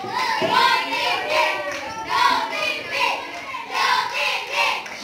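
Several children's high voices singing and calling out over one another.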